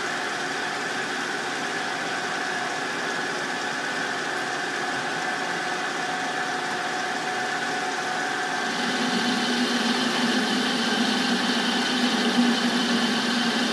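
Metal lathe running while its tool turns down the end of a vise handle. The sound is steady and grows louder, with a low hum added, about two-thirds of the way through.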